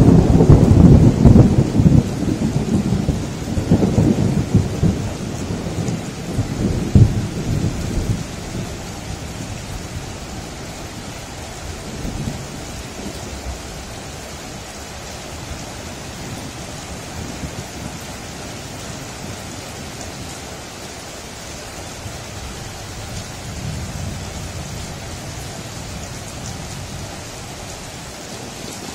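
Thunder over steady heavy rain: a loud clap at the start rolls on with sharp cracks for about eight seconds, then dies away to the even hiss of rain, with a faint distant rumble near the end.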